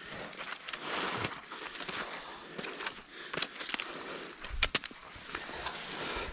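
Footsteps and rustling through ferns and forest-floor litter, with scattered sharp cracks and clicks of twigs and debris, a cluster of them with low thumps about three-quarters of the way through.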